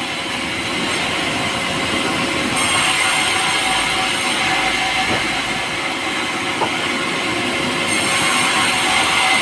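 Power saw cutting pulai, a light, soft timber, giving a steady mechanical whine over a hiss of cutting. The high hiss grows a little about two and a half seconds in and again near the end.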